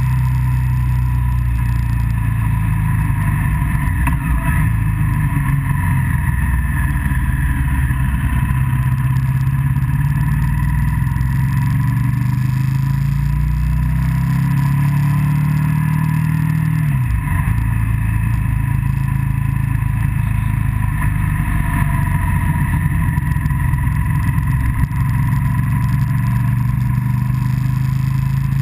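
Motorcycle engine running steadily on the move, with wind noise over it. Just past the middle the engine note climbs for several seconds as it accelerates, then drops abruptly at a gear change.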